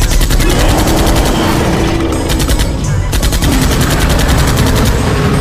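Automatic gunfire sound effect: rapid shots in two bursts, each about a second long, the second starting about two seconds in, laid over the heavy bass of a hip-hop beat.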